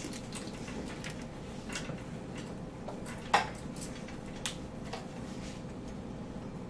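Classroom room tone: a steady faint hum with scattered light clicks and taps, and one sharper knock about three and a half seconds in.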